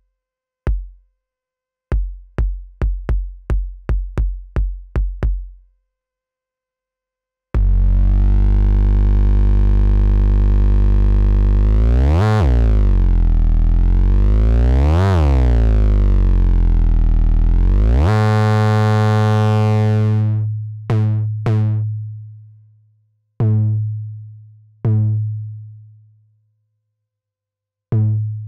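Handmade analog bass-kick synthesizer playing as its decay and pitch knobs are turned. First comes a quick run of short, deep kick hits. Then a long sustained bass tone follows, its overtones sweeping up and down, and it ends in a handful of single, higher bass hits with long decays.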